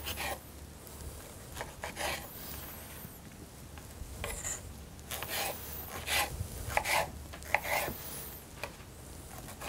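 Serrated knife sawing through tomatoes on a wooden cutting board: a series of short, irregular rasping strokes, with a few sharp taps of the blade against the board.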